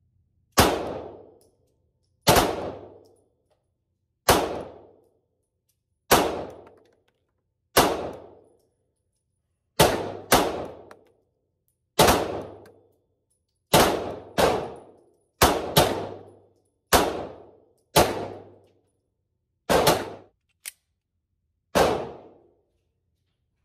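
Canik TP9 Elite SC 9mm subcompact pistol being fired at a steady, deliberate pace: about sixteen shots, mostly one to two seconds apart, with a few quick pairs.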